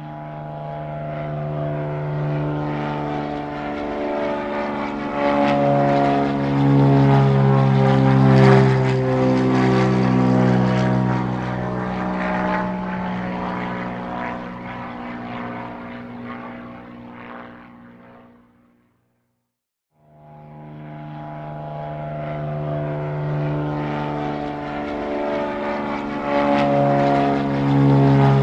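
Propeller airplane flying past: the engine drone swells to a peak, drops in pitch and fades away, then after a brief silence a second pass swells up again near the end.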